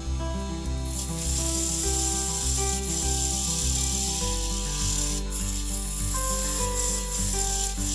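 A parting tool scraping through the spinning crepe myrtle tenon as a finished goblet is parted off the lathe: a steady hissing scrape that starts about a second in. Acoustic guitar music plays under it.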